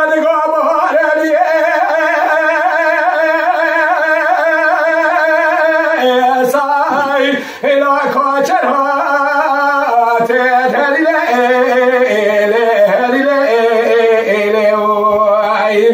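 A man singing dengbêj, Kurdish unaccompanied sung storytelling: one long held note with vibrato, then a drop in pitch about six seconds in and winding, ornamented phrases, with a short breath about a second and a half later.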